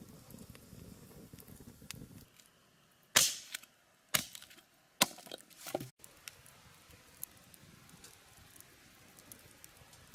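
Three sharp cracking impacts about a second apart, each with a short tail, followed by faint scattered ticks.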